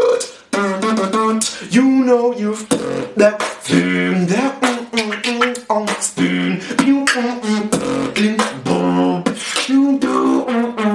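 Solo human beatboxing: a fast, dense run of sharp mouth-made drum sounds and clicks, with a hummed tune stepping between notes underneath. There is a brief drop about half a second in.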